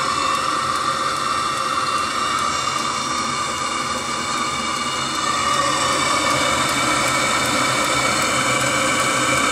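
Webasto Thermo Top C diesel coolant heater running steadily while heating its coolant: a steady whine from its combustion-air fan over a rushing noise, a little louder about halfway through.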